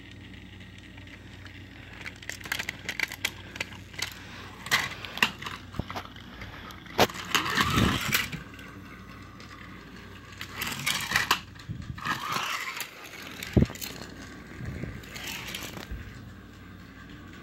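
Handling noise of toys being moved by hand close to the microphone: irregular clicks and knocks with several short bursts of scraping and rubbing.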